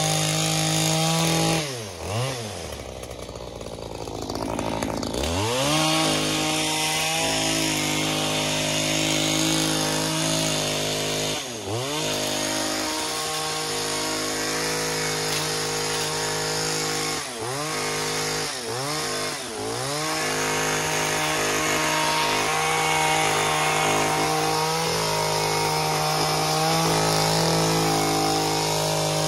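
Handheld powered garden cutting tool running at a steady high pitch. The motor briefly slows and picks up again several times: once about 2 s in, again around 5 s, near the middle, and three times in quick succession a little past halfway.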